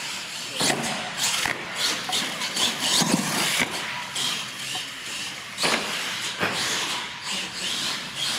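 Electric R/C monster truck driving on a concrete floor: the motor and gears whir in surges with the throttle and the tyres scrub on the concrete, with a few sharp knocks.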